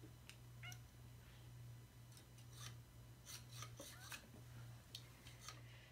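Near silence with scattered faint clicks and scrapes of fingers working at a plastic Orbeez jewelry-maker tray, pushing the water beads back into its holes, over a low steady hum.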